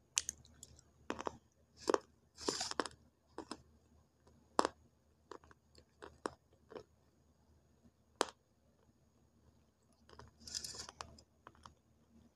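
Close-up crunching and chewing of a homemade clay stick coated in wet multani mitti (Fuller's earth) paste. It comes as irregular sharp crunches, with two longer stretches of chewing, one about two and a half seconds in and one near the end.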